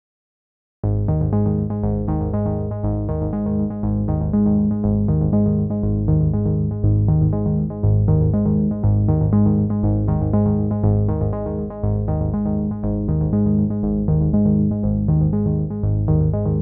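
Background music: a synthesizer and keyboard track with a quick steady beat, starting about a second in.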